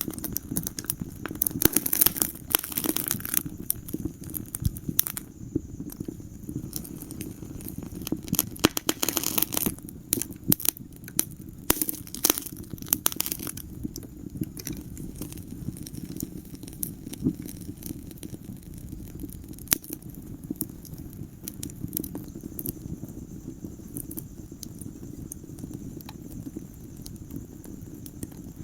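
Wood fire burning in a fireplace: irregular sharp crackles and pops over a low steady rumble of the flames, with the crackling busiest in the first half and thinner later.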